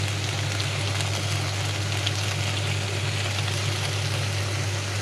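Chicken pieces sizzling on the hot plates of a contact grill, wet with freshly added coconut milk, with an even crackle. A steady low hum runs underneath.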